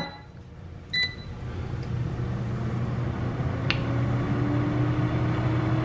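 Air fryer beeping once, then its fan motor starting up: a low hum that grows louder, with a faint whine rising slowly in pitch as it comes up to speed. A single light click a little past the middle.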